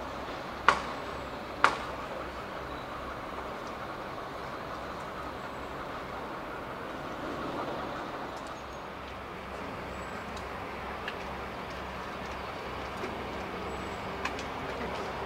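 Diesel locomotive running steadily, with two sharp knocks about a second apart near the start.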